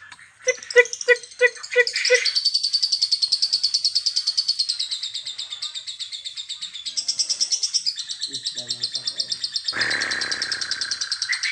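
Lovebird calling: a short run of about six evenly spaced 'koek' notes, then a long, rapid, high-pitched pulsing chatter, the lovebird 'ngekek' trill. A lower harsh call joins the trill near the end.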